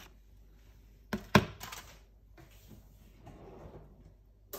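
Two sharp knocks a quarter second apart a little over a second in, as a plastic yogurt tub is set down on a hard countertop, followed by faint rustling of handling.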